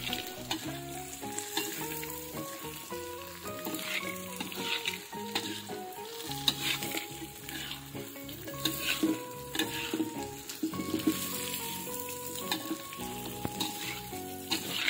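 Tofu cubes, anchovies and petai beans in chili sambal sizzling in oil in a pan while a metal spatula stirs and scrapes them, with a scrape every second or two.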